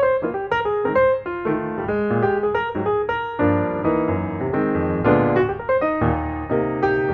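Background music: piano playing a quick run of notes over sustained chords.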